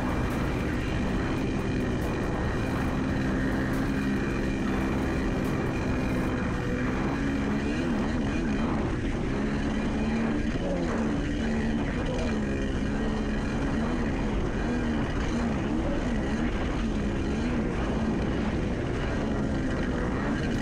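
Kawasaki 650SX two-stroke twin engine of a stand-up jet ski running under way, with water spray rushing along the hull. About a third of the way in its pitch starts wavering up and down as the revs rise and fall.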